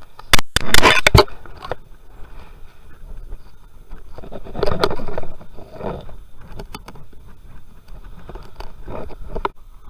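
Close handling noise: rustling, scraping and knocking as hands fumble with fishing gear and a spool of thread right at a chest-worn camera. The loudest is a quick cluster of knocks about half a second to a second in, then another rustling burst around five seconds in and a few scattered clicks.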